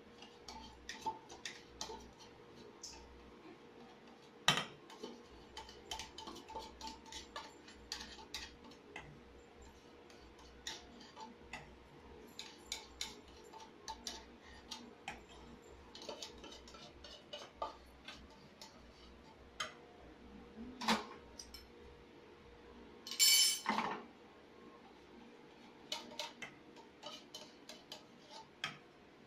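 A spoon scraping and clinking inside tin cans as condensed milk and cream are emptied into a pot: many light, irregular clicks, with a louder clatter about three-quarters of the way through.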